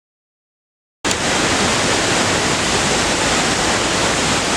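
Silence, then about a second in the steady rushing noise of Ravana Falls starts abruptly: a large waterfall pouring down rocky ledges.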